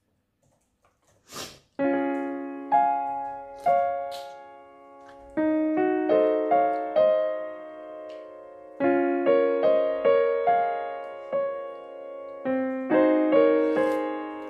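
Solo piano music, a slow melody of struck notes and chords that ring and fade, starting about two seconds in. Just before it, a single short click.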